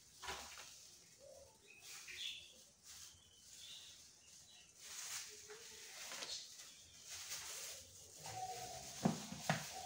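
Faint crinkling of a plastic piping bag as whipped-cream frosting is squeezed out by hand, with a few short squeaks, and a light knock near the end.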